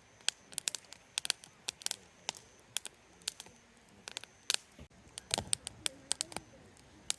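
Wood fire crackling, with irregular sharp pops and snaps several times a second.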